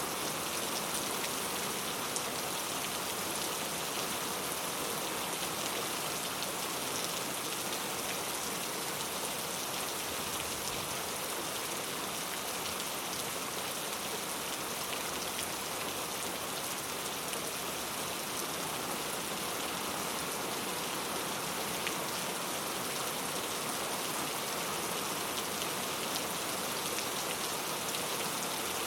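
Steady rainfall, an even hiss of rain on surfaces with scattered individual drop hits.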